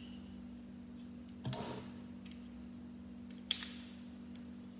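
Plastic Lego pieces being handled and pressed together, with two short clicks, the sharper one near the end, over a steady low hum.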